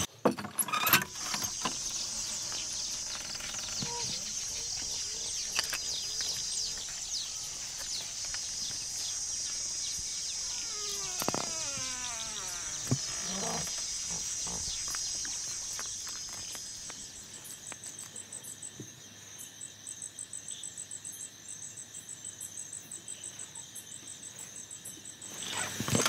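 Night chorus of crickets and other insects, a steady high-pitched hum that turns into an even pulsing trill about two-thirds of the way through. A door latch clicks and the door opens in the first second, and a few short falling calls sound around the middle.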